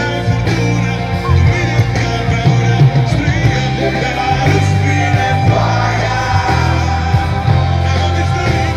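Live rock band playing through a PA: drums, bass, electric guitars and keyboards, with a lead singer over them.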